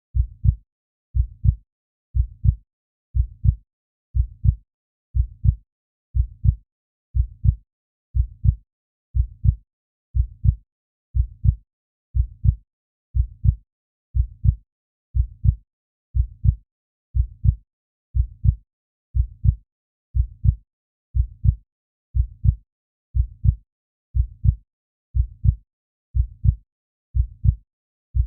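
Heartbeat sound effect: a steady, even rhythm of low double thumps (lub-dub), about one beat a second.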